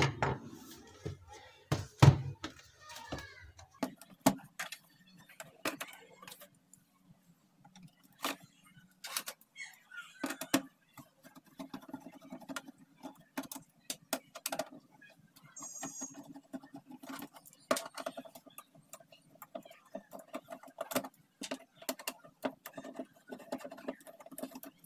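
Plastic casing of a Dell LED monitor being handled on a wooden workbench: a loud knock about two seconds in as it is turned face-down, then scattered light clicks, taps and scrapes of hands and a screwdriver working at the back cover's screws.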